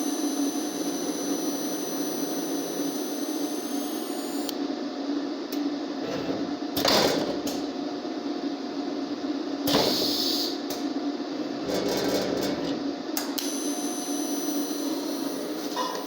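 Steady electrical hum from a robotic TIG welding setup run by a CNC controller, with a thin high whine over it. The whine drops out about a quarter of the way in and comes back near the end, and there are two brief louder rushes of hiss in the middle.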